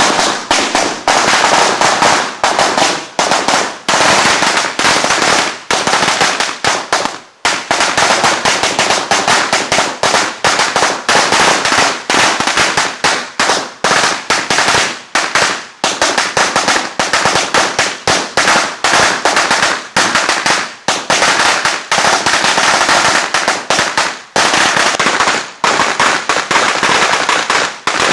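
A long string of firecrackers going off: rapid, nearly continuous loud bangs with a brief lull about seven seconds in.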